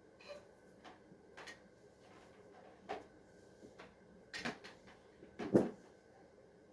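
A few scattered light clicks and knocks, as of objects being handled, over a quiet room; the two loudest knocks fall about four and a half and five and a half seconds in.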